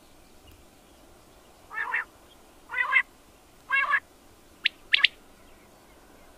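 Quail calling: three short calls about a second apart, then two brief, sharper notes.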